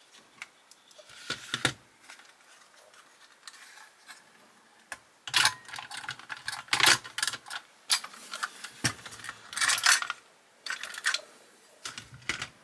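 Clicks, taps and clatter of a 1:18 Bburago die-cast model car being handled and taken apart, its metal body shell and plastic chassis parts knocking together. A few isolated clicks at first, then denser clattering from about five seconds in.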